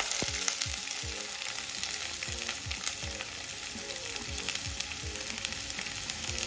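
Sliced onions, green chillies and curry leaves sizzling in hot coconut oil in a clay pot as more onion is tipped in: a steady frying hiss with frequent small pops.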